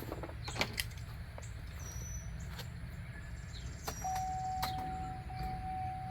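A few light clicks, then about four seconds in a power window motor starts running with a steady whine: the 2003 Yukon XL Denali's rear door window being tested on its newly replaced regulator.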